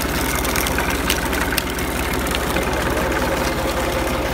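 Engine-driven sugarcane crusher running steadily as cane stalks are fed between its geared iron rollers, with a continuous rapid low beat from the engine. A few sharp clicks about half a second to a second and a half in.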